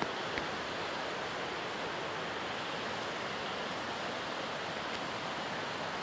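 A steady, even hiss with no distinct events, and a faint click right at the start.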